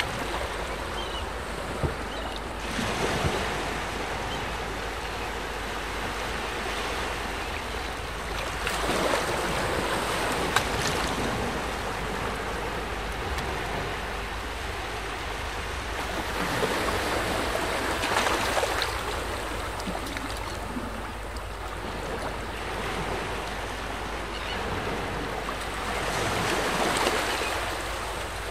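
Shoreline ambience of wind and gently lapping water: a steady rush that swells louder and eases back every several seconds.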